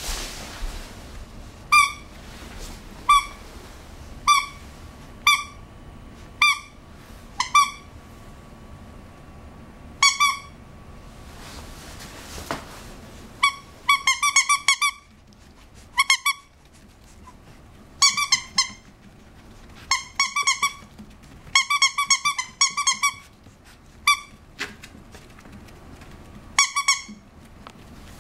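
A plush toy's squeaker squeezed by hand, giving short high squeaks all at the same pitch. At first they come singly, about one a second. From about halfway through they come in quick runs of several squeaks in a row.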